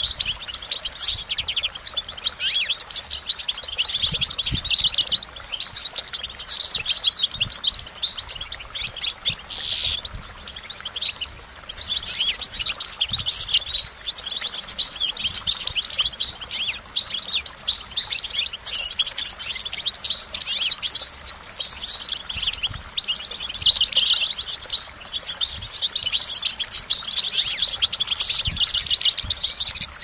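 European goldfinch singing: a fast, almost unbroken twittering song of high notes, with a short pause about eleven seconds in.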